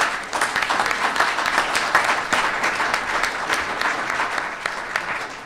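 Audience applauding: many hands clapping, thinning out near the end.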